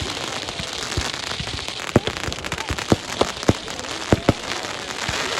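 Fireworks display: a run of sharp bangs at irregular intervals, some in quick pairs, over a steady crackling hiss.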